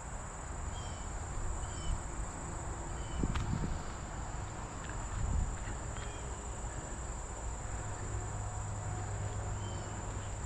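Insect chorus with crickets: a steady high-pitched drone, with short chirps repeating about once a second.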